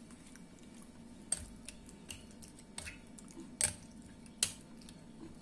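Light, scattered clicks and knocks from a glass bowl being handled as raw chicken is mixed by hand with yogurt, about six in all, the sharpest two a little past the middle, over a low steady hum.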